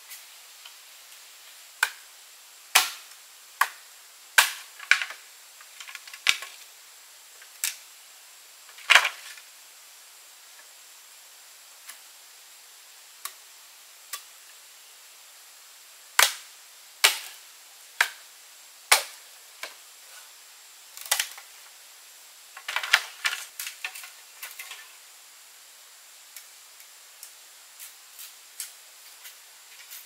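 Sharp cracks and clicks at irregular intervals, some in quick clusters and some standing alone, over a faint steady hiss.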